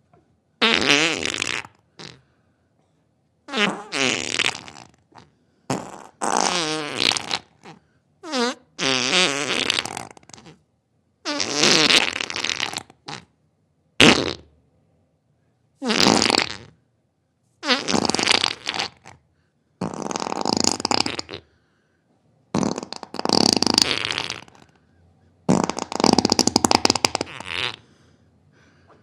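A series of about a dozen separate farts, one after another with silent gaps between them. They range from short pops to drawn-out ones of two seconds or more, with a wavering pitch.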